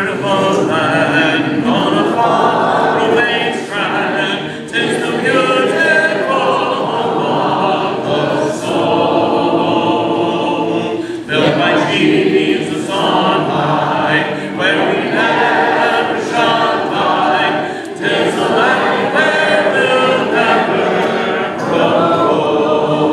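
Congregation singing a hymn a cappella, without instruments, in continuous phrases with brief breaks between lines.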